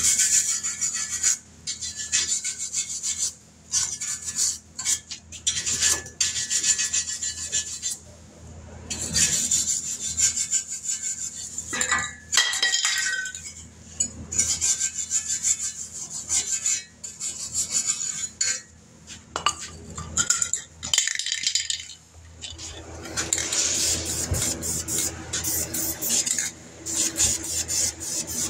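Hand work on metal parts: stop-start metallic clinking and scraping, with short pauses between bouts and a rougher stretch of scraping near the end.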